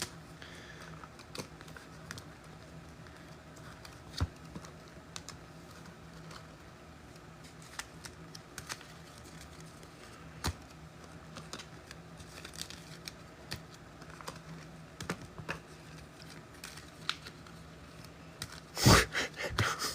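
Light, irregular clicking of typing on a computer keyboard, with a louder knock or handling noise near the end.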